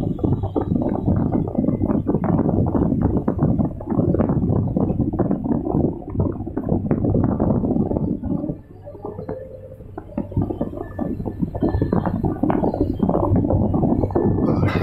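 Excavator running, heard from the operator's cab: a low engine hum under a dense, crackling rumble as the slope bucket scrapes and pushes loose soil along the slope. The rumble eases for a second or two just past the middle, then picks up again.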